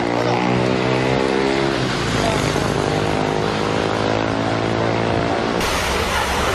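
Rushing storm wind with a steady droning hum full of overtones beneath it. About five and a half seconds in, the sound changes abruptly to a harsher, brighter rush of wind buffeting the microphone.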